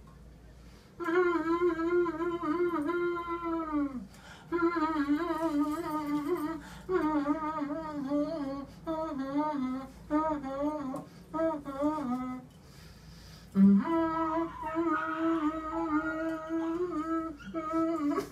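A person humming a song's melody in four phrases, with short pauses between them, the notes wavering slightly.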